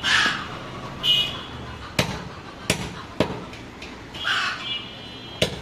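Two harsh, crow-like bird calls, one at the start and one about four seconds in. Between and after them come four sharp knocks of a butcher's knife striking a wooden chopping block.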